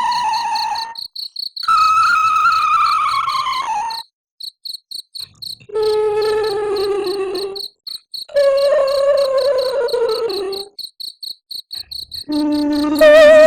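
Sound-effect wailing of a female ghost crying: a run of long cries, about five, each drawn out and falling in pitch. Crickets chirp in a steady pulsing rhythm beneath them.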